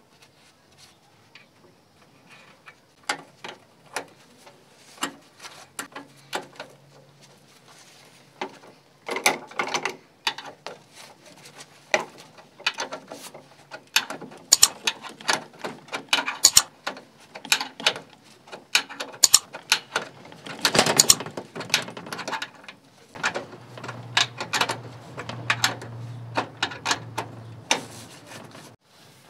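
Irregular metallic clicks, clinks and rattles of steel parts being handled and fitted: ball bearings and nuts on the bolts of a homemade bending jig clamped in a bench vise, and a bicycle crank arm being mounted. A denser, louder rattle comes about two-thirds of the way through.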